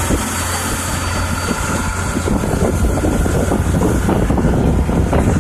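Parasail tow boat's engine running under way: a steady low hum that becomes a louder, rougher rumble about two seconds in, with a constant high hiss over it.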